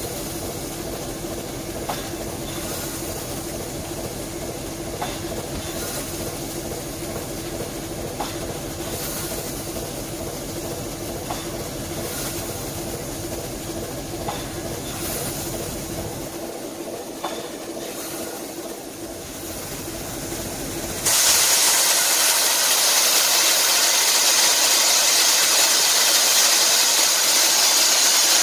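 Standing steam locomotive blowing off steam: after a steady locomotive hum with occasional clicks, a loud, steady hiss of venting steam starts abruptly about 21 seconds in and carries on.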